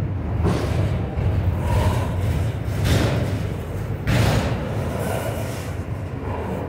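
Autorack freight cars rolling past close by: a steady low rumble of steel wheels on rail, with louder clattering surges about half a second, three seconds and four seconds in, the last the loudest.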